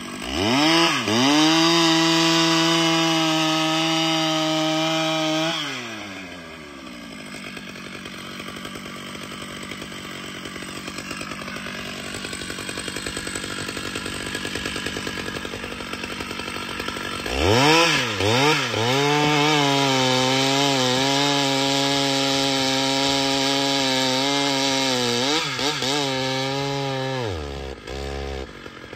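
Large professional two-stroke chainsaw revving to full throttle and holding there for about five seconds, then dropping back to a low idle. After about ten seconds it is blipped up several times, runs flat out for about ten seconds, and falls back off near the end.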